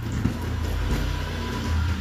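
A low, steady engine-like rumble, as of a motor vehicle running nearby, that drops away near the end.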